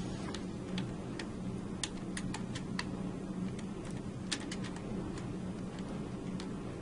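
About a dozen light, irregular clicks and ticks of a Phillips screwdriver and small metal parts being handled as the Ronis key lock's mounting screws are loosened and the bracket and lock are lifted off, over a steady low hum.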